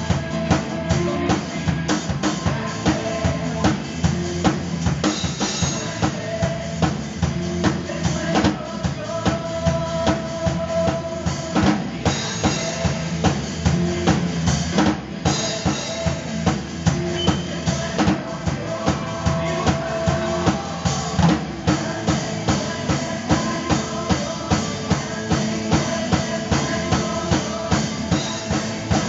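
Acoustic drum kit played as a drum cover over a recorded song. A steady beat of bass drum and snare, about two strong beats a second, runs with cymbals over the song's held instrumental tones.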